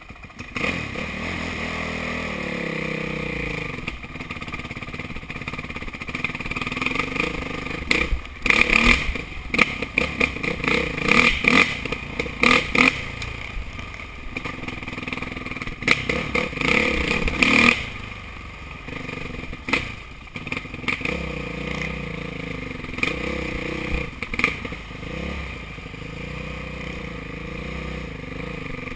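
Dirt bike engine running and revving up and down while riding over rough, rocky ground. Loud, noisy bursts of clatter come through the middle stretch.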